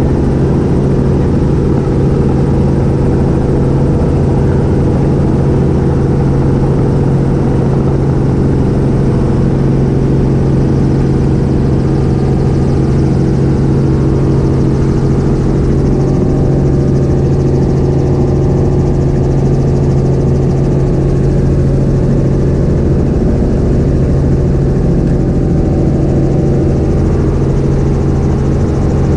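Light helicopter running steadily, heard from inside the cabin: a loud, constant drone of engine and rotors with a strong steady hum.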